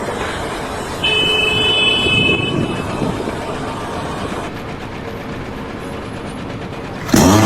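Vehicle or heavy machinery running with a steady, noisy rumble. About a second in, a horn-like tone sounds for roughly two seconds. Near the end a much louder engine cuts in suddenly.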